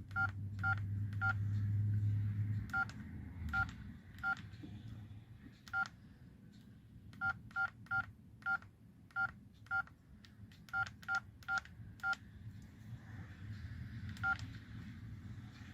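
LG V111 mobile phone keypad beeping as its buttons are pressed: about nineteen short two-tone beeps at an uneven pace, nearly all the same tone. A low rumble sits under the first few seconds.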